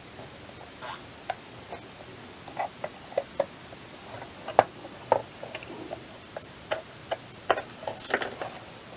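Irregular clicks and snaps of a small screwdriver prying at the glued plastic case of a gas igniter module, its glued posts resisting. The loudest crack comes about halfway through, and a quick cluster of snaps near the end as the cover comes loose.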